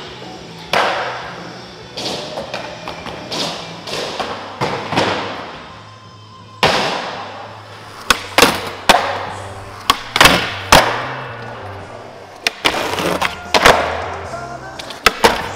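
Skateboard tricks: sharp board pops and landing slaps, with trucks and deck grinding and sliding on a metal rail and a ledge, a dozen or so hits each with a short echo, the hardest cluster in the second half. Music plays underneath.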